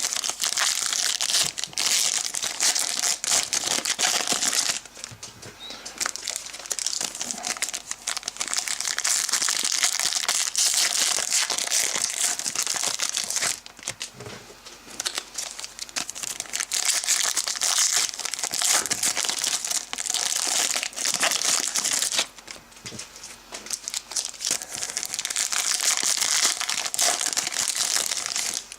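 Plastic trading-card pack wrappers crinkling and tearing as packs are opened and handled. The sound comes in four long stretches with short pauses about 5, 14 and 22 seconds in.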